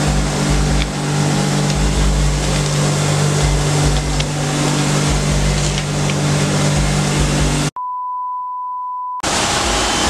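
Steady machinery hum with a rushing noise, cut off about three-quarters of the way through by an edited-in censor bleep: a single pure tone lasting about a second and a half, after which the hum comes back.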